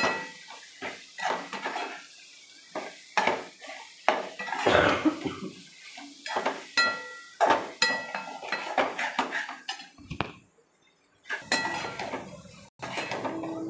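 Metal spatula scraping and knocking against a metal kadai while scrambled egg and onion-tomato masala is stirred and sautéd, in irregular strokes, some with a short metallic ring. A brief pause about ten seconds in.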